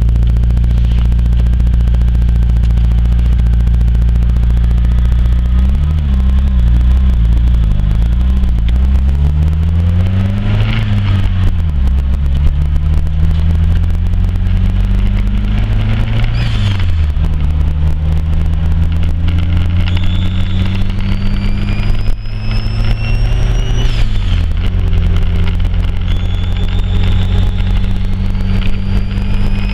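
Engine running at a steady idle and briefly revved several times, its pitch swinging up and back down around 6 to 11 seconds in, again near 16 seconds and at about 24 seconds. In the second half a high whistle slowly climbs in pitch twice over several seconds above the engine note.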